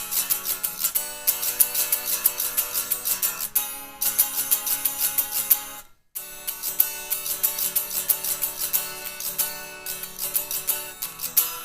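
Guitar strumming chords in a steady rhythm, cutting out for a moment about six seconds in before the strumming resumes.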